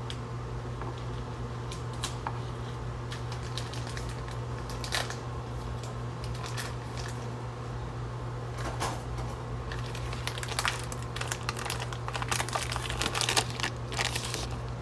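Steady low hum with scattered clicks and crinkling handling noises while food is being put together, growing busier in the last few seconds.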